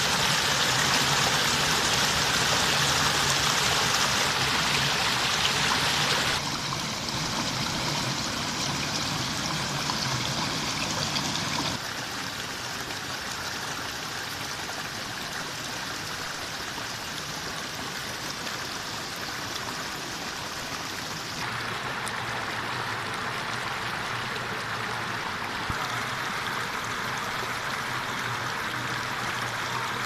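Shallow mountain stream rushing and splashing over rocks in small cascades, a steady rush of water that changes abruptly in level three times.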